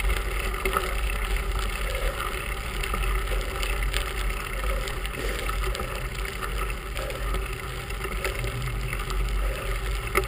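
Bicycle rolling along a gravel carriage road: steady tyre noise on the gravel with many small ticks and rattles, over a low rumble of wind on the handlebar-mounted microphone.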